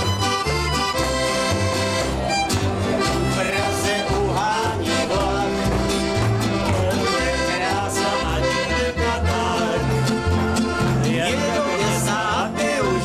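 Small folk band playing live: accordion carrying the melody with strummed acoustic guitar and a plucked double bass keeping a regular beat underneath.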